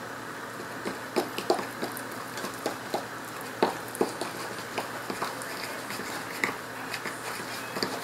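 A fork stirring flour and cold water into a stiff bread-dough preferment in a small clear container: irregular clicks and taps of the fork against the container, several a second, over a faint steady hum.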